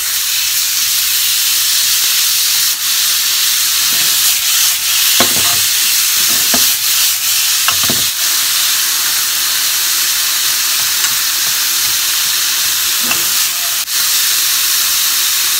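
Sliced chicken gizzards and garlic sizzling steadily in hot oil in a frying pan, stirred with long cooking chopsticks that click against the pan a few times.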